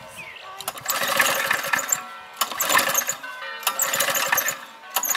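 Old four-stroke lawnmower engine being cranked by hard pulls on its recoil starter, three pulls of about a second each, turning over without catching.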